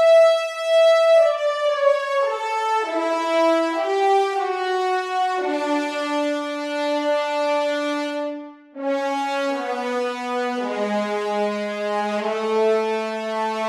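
Sampled French horn section from the Cinematic Studio Brass library playing sustained long notes in a slow line that steps downward, often two or more notes at once. A short gap comes a little past halfway, then the line settles onto a low held chord.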